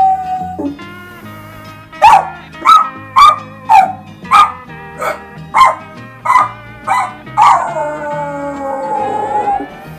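A person imitating a dachshund: the tail of a howl, then about nine quick yapping barks, then a long howl that falls in pitch. Light background music plays underneath.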